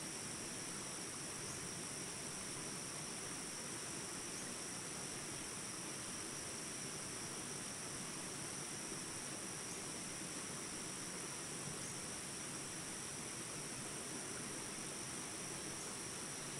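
Continuous high-pitched insect chorus, steady and unchanging, over a soft even hiss.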